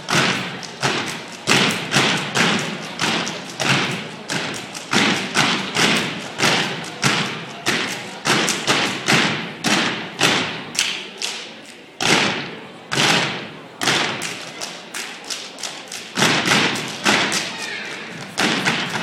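A step team's stomps and hand claps in a fast rhythmic pattern, about two or three sharp echoing hits a second, with a brief break about twelve seconds in.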